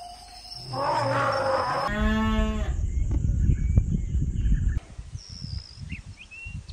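Cow mooing once, a short call held at a steady pitch, after a rougher animal call just before it. Near the end, birds chirp briefly over quieter ground noise.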